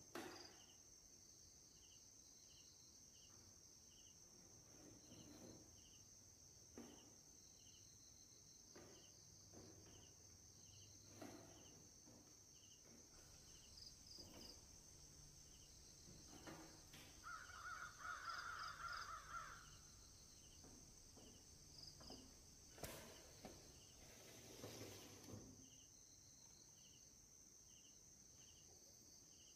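Near silence: faint clicks and rustles of wiring and plug connectors being handled and pulled from a CRT television's chassis board, with small insect chirps repeating under a faint steady high whine. A short run of harsh bird calls comes about two-thirds of the way through and is the loudest sound.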